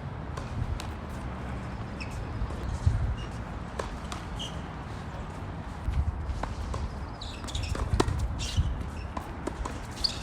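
Wind buffeting the microphone with a steady low rumble, under scattered sharp knocks of tennis balls being struck and bouncing on the court during play.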